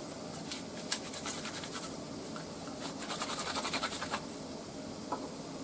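Papery garlic skins crackling and rustling as cloves are rolled in a rubber garlic-peeler tube. The quick scratchy strokes come faster toward the end and stop about four seconds in.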